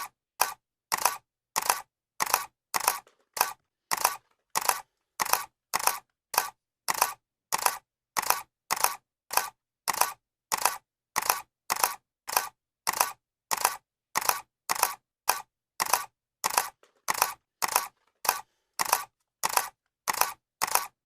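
Camera shutter clicking over and over at an even pace, about one click every 0.6 seconds, each a quick double snap with silence between.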